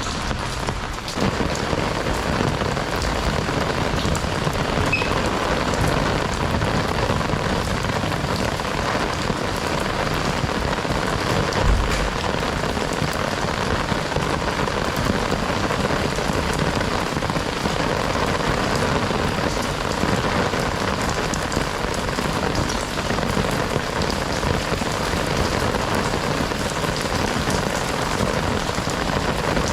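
Heavy rain falling steadily on surfaces, an even hiss of many drops, with one brief low thump near the middle.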